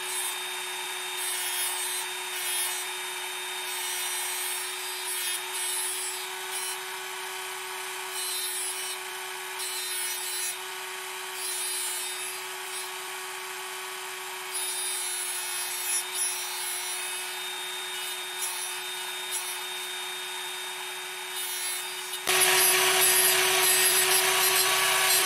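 Proxxon rotary tool spinning a thin abrasive cutoff wheel as it grinds a slot through a hardened steel die: a steady motor whine over the hiss of the wheel cutting steel. The cut is fed slowly and steadily, and the sound gets louder about three seconds before the end.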